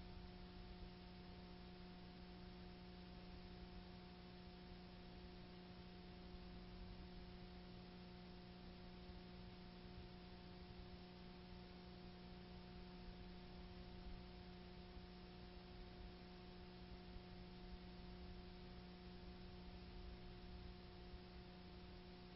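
Near silence: a steady low electrical hum with faint hiss underneath, unchanging throughout.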